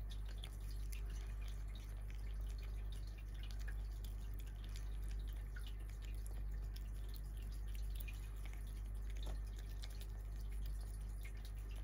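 Kitten licking and eating sticky natto with green onion off chopsticks: a steady run of small wet clicks and smacks, several a second, over a steady low hum.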